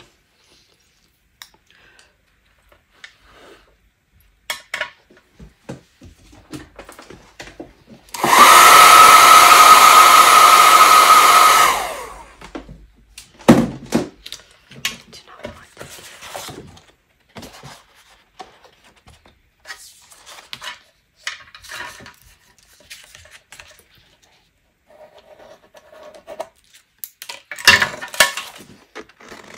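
A hand-held electric dryer runs for about four seconds, blowing steadily with a high whine, drying freshly applied colour on paper. Light taps and paper handling come before and after, with a louder rustle of a sheet of card near the end.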